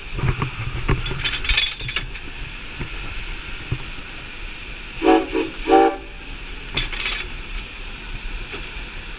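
Steam locomotive whistle giving two short toots about five seconds in, over a steady hiss of steam in the cab. Sharper bursts of steam hiss come about a second and a half in and again near seven seconds.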